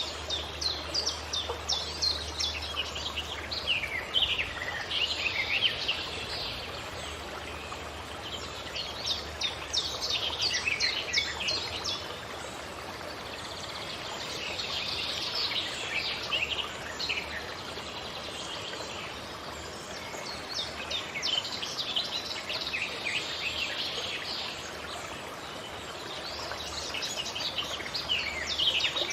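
Forest birds chirping and singing in repeated quick phrases, bouts coming every few seconds, over a steady background hiss.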